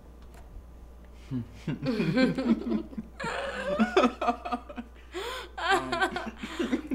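A man and a woman laughing together, starting about a second in and coming in uneven bursts.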